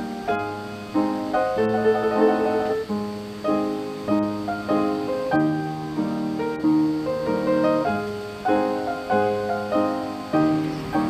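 Solo piano background music, a gentle melody over chords.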